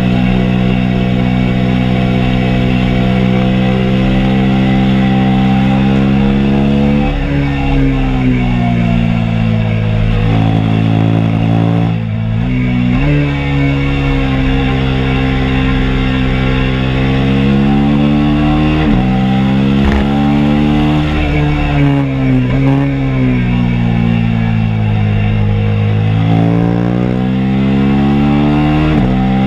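2022 KTM RC 390's single-cylinder engine under way on a race track, its pitch falling as the bike slows for corners and rising again under throttle. The pitch steps abruptly several times, about a third of the way in, past the middle and near the end.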